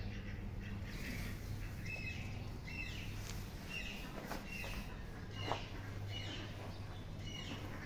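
Short, high bird chirps repeated about once a second over a steady low hum, with a few faint knocks and one sharper knock about five and a half seconds in.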